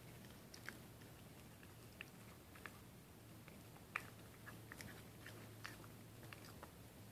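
Faint, scattered clicks and smacks of a schnauzer puppy mouthing and chewing its chew bone, over a low steady hum.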